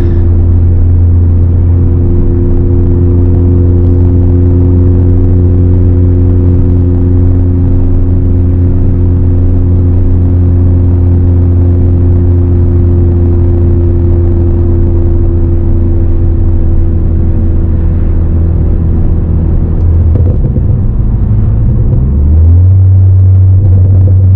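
2018 Ford Focus ST's turbocharged 2.0-litre four-cylinder with an aftermarket exhaust, running at a steady engine speed while the car drives. About twenty seconds in the engine note breaks up briefly, then settles again at a slightly higher pitch.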